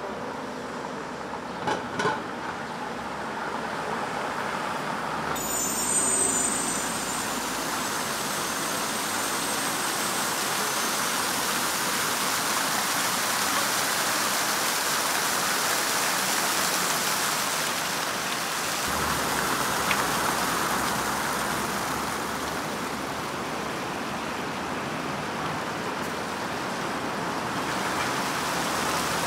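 Quiet street ambience with two short knocks about two seconds in. About five seconds in, the steady splashing hiss of a large fountain's many water jets takes over and holds.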